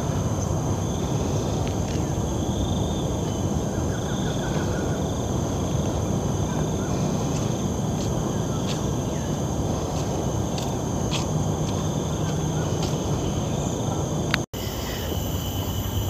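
Outdoor hilltop ambience: a steady low rushing noise with a continuous high-pitched insect drone over it and a few faint chirps. The sound cuts out for an instant near the end.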